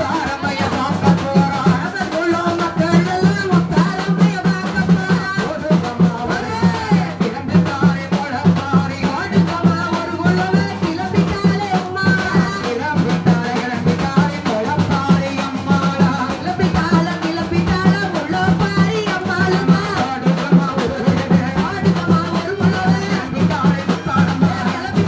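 Tamil Mulaipari kummi song: sung melody carried over a steady, fast beat of hand-played festival drums.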